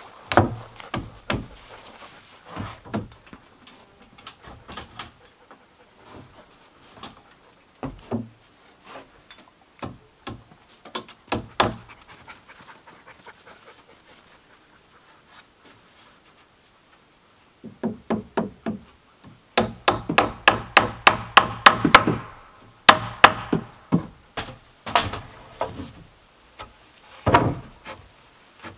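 Hammer striking nails into overhead wooden porch beams: scattered single knocks, then a fast run of blows, several a second, about two-thirds of the way through, and a few slower strikes near the end.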